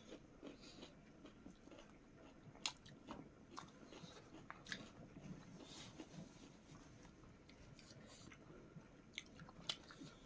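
Faint close-up eating sounds of chicken and rice eaten by hand: chewing and mouth smacks, with scattered short sharp clicks.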